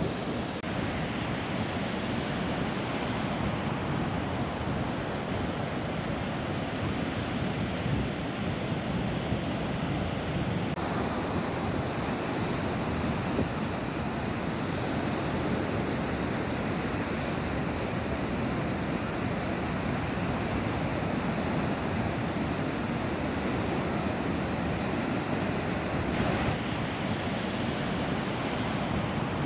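Sea waves surging and washing in a continuous surf, a steady rushing noise whose texture shifts slightly about 11 and 26 seconds in.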